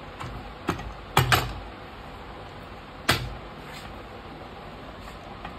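Crankshaft being pressed and seated into its bearing in a TVS Star Sport engine crankcase half: a few short metallic knocks and clunks, the loudest a close pair about a second in and another about three seconds in.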